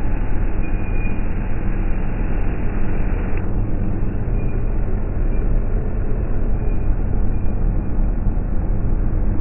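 Police pickup truck driving slowly past, a steady low engine and road rumble.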